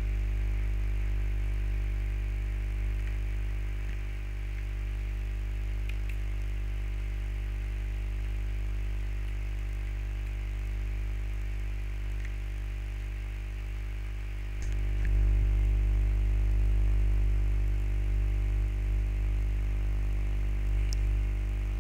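Steady low hum and buzz of background noise, growing louder about two-thirds of the way through, with a few faint clicks.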